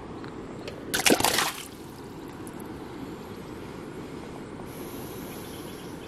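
A short splash of water about a second in, over a steady low background noise.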